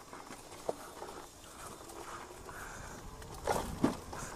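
E-bike tyres rolling over a wet gravel and dirt trail: a soft rough rolling noise with scattered small clicks and knocks, and a couple of louder bumps near the end.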